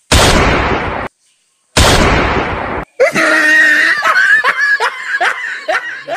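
Two loud explosion-like sound-effect blasts, each about a second long and cut off abruptly, followed by a high giggling laugh with quick rising chirps, about two or three a second.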